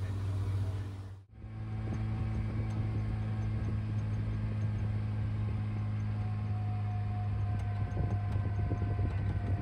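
A vehicle engine running steadily with a low, even hum, which drops out briefly about a second in and then resumes.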